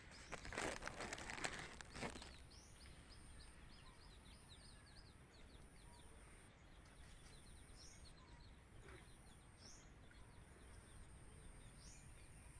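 Faint outdoor ambience of small birds chirping rapidly, with a few higher rising calls scattered throughout. A brief rustling noise fills the first couple of seconds.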